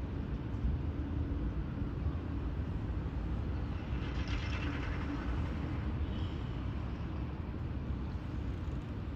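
Steady low engine rumble heard outdoors, with a brief brighter rasp about four seconds in.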